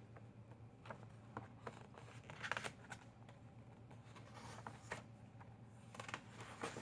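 Faint rustling and light clicks of a paperback book being handled, with a few short scrapes, over a low steady hum.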